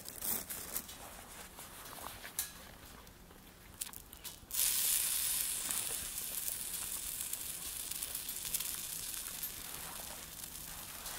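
A few light clicks and rustles, then about four and a half seconds in a loud sizzling starts suddenly and carries on: food going onto a hot cooking surface over a wood fire.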